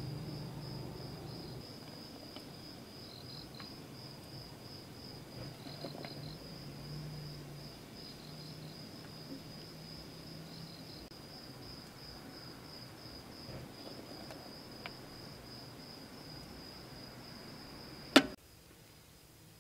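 A cricket trilling steadily, a continuous high pulsed chirp, over a low hum. A single sharp click comes near the end.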